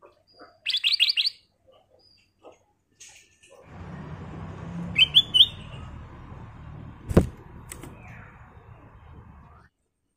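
Black-crested bulbul (kutilang emas) calling in short bursts: a quick run of about five bright chirps about a second in, then three rising whistled notes around five seconds in. A single sharp knock sounds about seven seconds in, over a low background noise that runs for several seconds in the middle.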